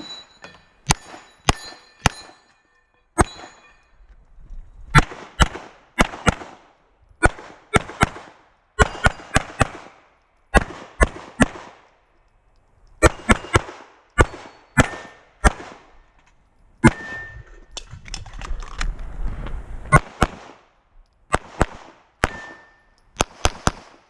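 Pistol shots fired in quick strings during a timed action-pistol stage, dozens of sharp bangs in groups of two to five with short gaps between strings.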